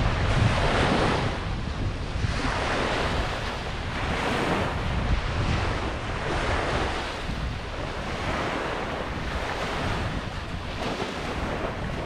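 Ocean surf washing onto a beach, the waves swelling and easing every couple of seconds, with a steady low rumble of wind on the microphone.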